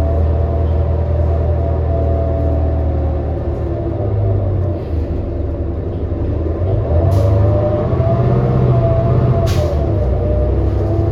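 2018 New Flyer XD40 diesel transit bus heard from inside, its engine and drivetrain running steadily under way with a wavering whine on top. Two short hisses of air come in the second half.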